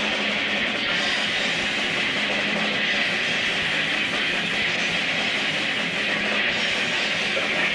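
Metal band playing live: distorted electric guitars, bass and drums blurred into a steady, dense wall of noise with no breaks.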